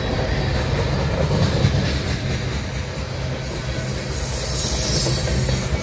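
Freight cars of a CSX mixed freight rolling past with a steady rumble of steel wheels on the rails. A higher hiss from the wheels grows over the last couple of seconds.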